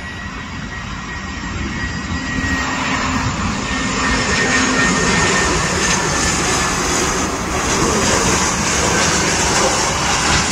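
Airbus A319 airliner's jet engines on landing approach, gear down, passing low. A steady jet rush with a faint high whine grows louder over the first few seconds as the aircraft nears, then holds.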